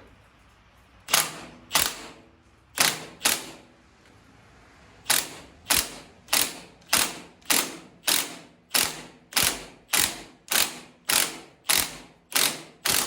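An impact wrench hammering in short trigger blips, driving the forcing bolt of a puller to press a tractor's steering wheel off its shaft. Two pairs of blips come first, then an even run of short blips, a little under two a second.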